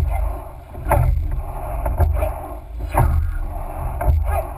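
Sweep-rowing shell under way: oars knocking in their oarlocks with each stroke, a sharp clack about once a second, over water rushing along the hull and a steady low rumble of wind on the microphone.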